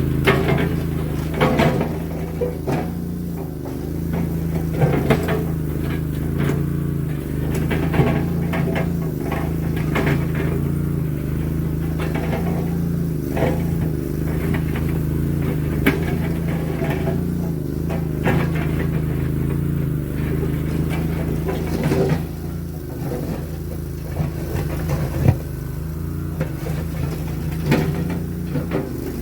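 Boxer 320 mini skid steer's engine running steadily, with scattered short knocks and clanks from the machine at work.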